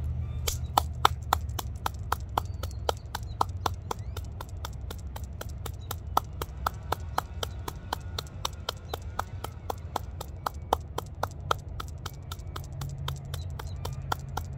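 A steady low rumble of construction machinery, with a sharp, regular clicking of about four to five clicks a second over it.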